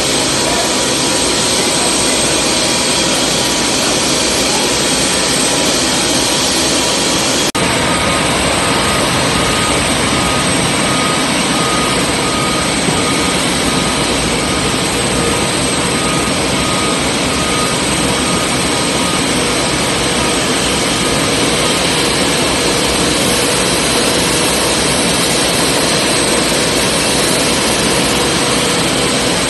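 Loud, steady whine and rush of the machinery powering a Boeing 747's hydraulics during a landing gear retraction test on jacks, echoing in a hangar. A sharp click comes about seven and a half seconds in, after which a faint steady tone joins for a while.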